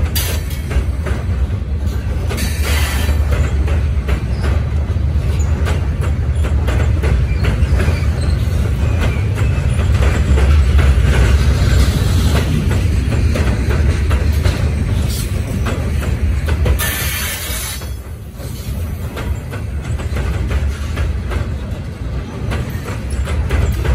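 Covered hopper cars of a unit grain train rolling over a steel railroad bridge: a steady heavy rumble with a continuous clatter of wheels clicking over the rails, dipping briefly about three-quarters through.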